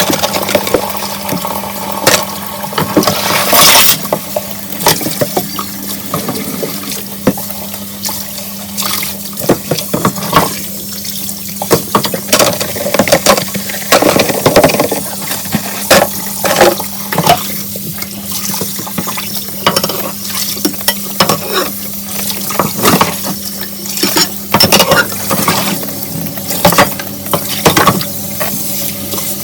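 Kitchen tap running into a sink while dishes are washed under it, with frequent clinks and knocks of dishes throughout.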